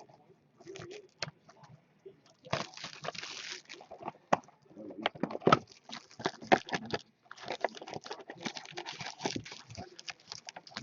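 A sealed hockey card hobby box being unwrapped and opened by hand: crinkling plastic wrap and scraping, tapping cardboard in irregular bursts, with sharp clicks in between.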